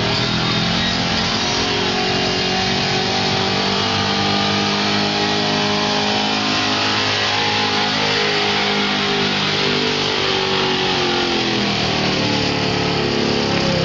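Chevrolet pulling pickup's 454 big-block V8 running at high revs under full load as it drags a weight-transfer sled. Its pitch climbs slowly through the pull and falls off near the end.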